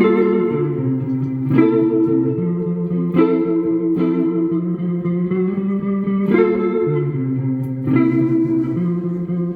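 Instrumental opening of a band song: an electric guitar plays a slow chord progression, with a new chord struck about every one and a half seconds and left ringing.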